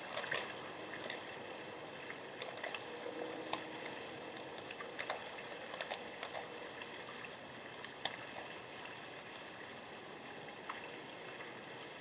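Black bear scraping and licking at ice in a bird-bath basin: scattered small scrapes and clicks over a steady hiss, fewer of them in the second half.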